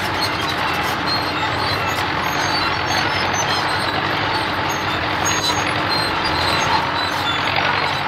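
Road roller engine running steadily as the roller drives along; a cartoon sound effect.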